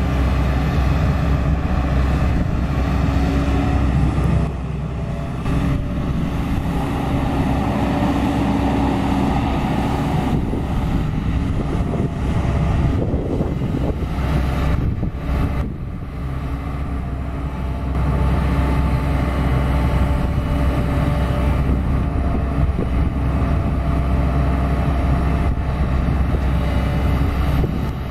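JCB JS210 NLC tracked excavator digging soil, its diesel engine running steadily under load. The level drops briefly about four seconds in and again around sixteen seconds.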